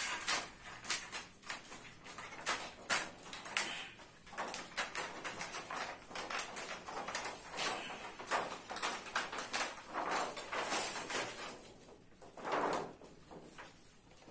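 White reflector sheet of an LED TV backlight crinkling and crackling as it is peeled up off the LED strips and lifted away, with many quick crackles and a louder rustle near the end.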